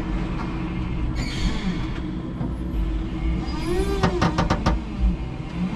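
Electric forklift truck running under load with a steady low hum, and a short hiss about a second in. Just before four seconds the motor tone rises, followed by a quick rattle of five or six sharp clicks.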